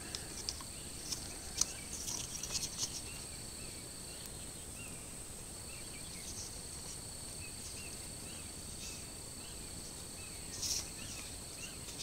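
Outdoor ambience of insects trilling steadily at a high pitch, with faint bird chirps and a few light clicks from handling small brass plumbing fittings, most in the first three seconds and one more near the end.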